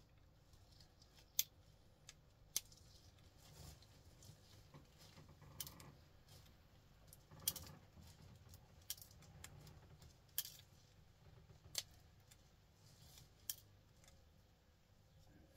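Sharp clicks of small pliers gripping and snapping gold-plated pins out of plastic cable connectors, about one every second or two, with faint handling rustle between.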